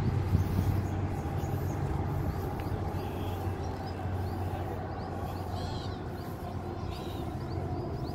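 Outdoor park ambience: birds chirping and calling here and there over a steady low rumble of city traffic.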